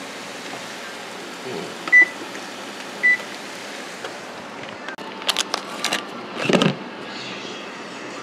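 Whirlpool range's oven control panel beeping twice, about a second apart, as its buttons are pressed to set the oven. A few seconds later comes a quick run of sharp clicks and a thump.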